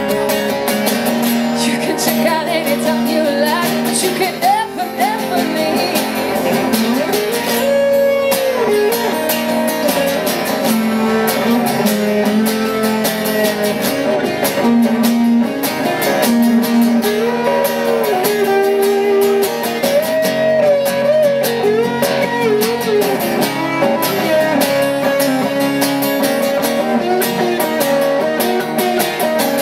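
Live acoustic music: two steel-string acoustic guitars playing together, with chords and a melody that bends and slides over them.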